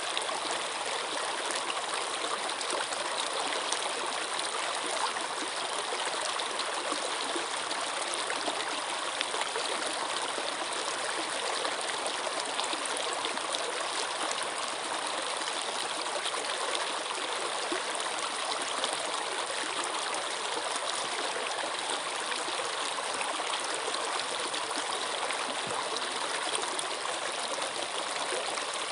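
Flowing water running steadily, an even rush with no breaks or changes.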